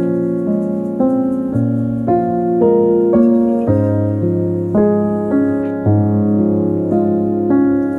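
Background piano music: a gentle melody with notes struck about twice a second, each fading away after it is struck.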